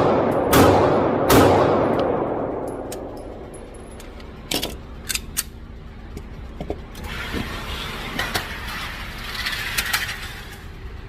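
Sig Sauer P320 M17 AXG 9mm pistol firing a quick string of shots, about 0.7 s apart, near the start, each with a long echoing decay. A few sharp clicks follow about four to five seconds in.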